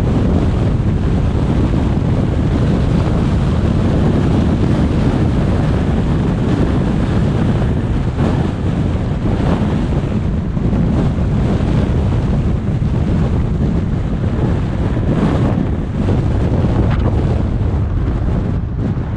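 Steady low rumble of wind buffeting the microphone, mixed with road and tyre noise from a car driving along a city street.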